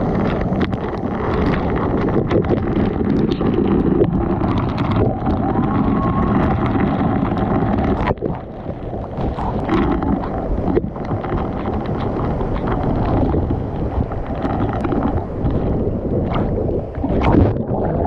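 Waterfall crashing down right at the microphone, water pouring and splashing onto it in a loud, steady rush. The rush dips briefly about eight seconds in.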